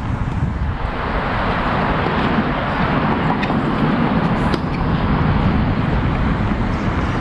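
Steady rushing outdoor background noise with a low rumble, and a faint click about four and a half seconds in.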